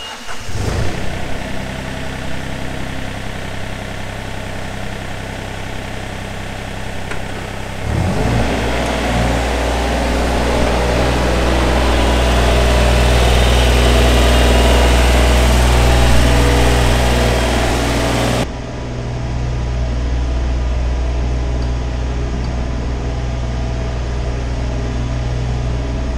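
Takeuchi TB230 mini excavator's diesel engine running, then revving up to a louder, steady full-throttle note about eight seconds in as the machine tracks across the floor on rubber tracks. About eighteen seconds in the sound turns suddenly duller.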